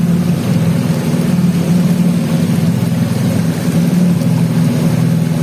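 Motorboat engine running at a steady speed, a low, even drone.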